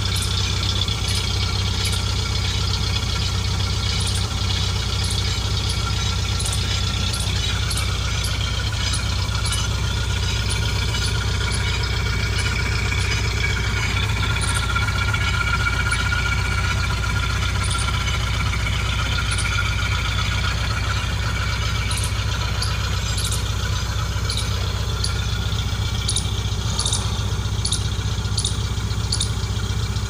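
Maruti Gypsy's engine running steadily in gear, driving the bare hub so that the newly fitted brake disc spins freely. Short, high ticks come and go over the steady hum.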